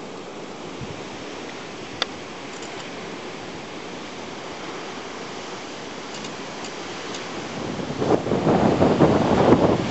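Steady wash of sea surf and wind, with a single sharp click about two seconds in. Near the end it gets much louder and gustier as waves break on rocks and wind buffets the microphone.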